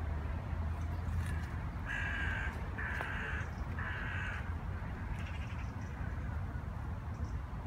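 A crow cawing: three harsh caws about a second apart, then a fainter fourth, over a steady low background rumble.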